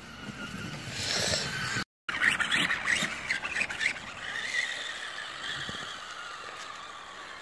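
Brushless electric motor and drivetrain of a Traxxas Stampede RC truck whining as it speeds up and slows, with scraping and clicks about two to three seconds in. The sound cuts out for a moment just before that, and the whine fades toward the end.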